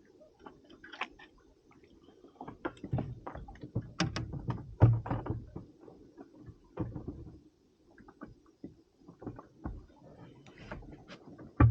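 Irregular clicks, knocks and low thumps of fishing tackle being handled in a small inflatable boat, busiest and loudest about four to five seconds in.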